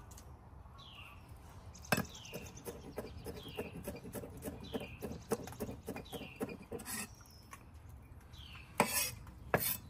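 Kitchen knife chopping garlic on a wooden cutting board, a quick run of taps with a louder knock about two seconds in. Near the end the blade scrapes across the board to scoop up the minced garlic. Behind it a bird repeats a short falling whistle about once a second.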